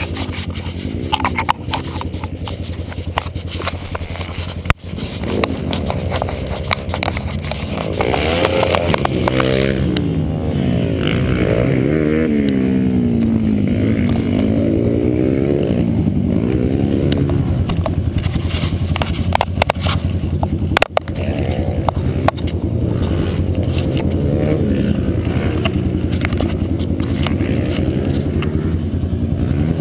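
Pit bike engine running and revving up and down again and again, with a few sharp knocks from the camera being handled.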